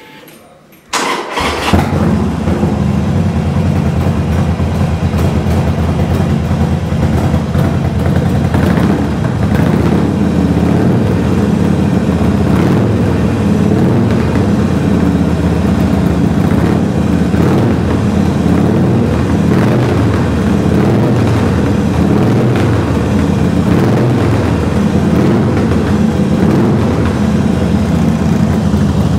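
2012 Harley-Davidson Superlow Sportster's air-cooled 883 cc V-twin, on noisy straight-through pipes, started on the electric starter about a second in. It catches at once and then idles loudly and steadily.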